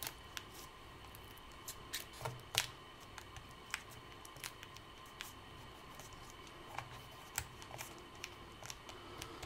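Fingertips pressing and smoothing a piece of clear adhesive tape over a laptop's display cable connector: faint, irregular little clicks and crinkles of the tape. A faint steady hum runs underneath.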